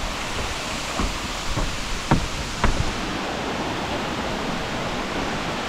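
Waterfall water rushing steadily, with four or five short knocks in the first three seconds.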